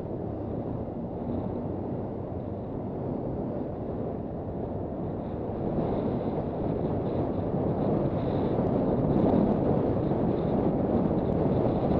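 Wind rushing over the microphone on a moving motorcycle, growing louder about halfway through, with the Honda CB400 Super Bol d'Or's engine running low underneath.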